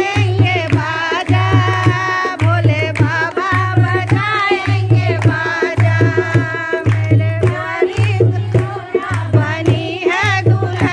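Group of women singing a devotional folk bhajan in unison to a dholak, the drum's deep bass head booming in a steady beat under sharp treble-side slaps, with hand claps keeping time.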